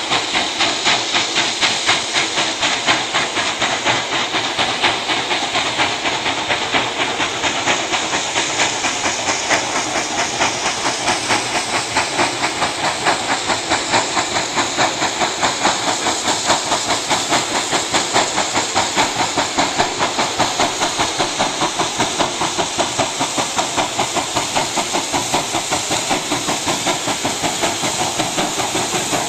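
Two steam locomotives double-heading a passenger train, working hard as they approach, with rapid, even exhaust beats and hissing steam.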